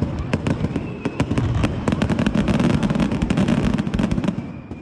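Fireworks display going off in a rapid, dense volley of many bangs and crackles, thinning out near the end.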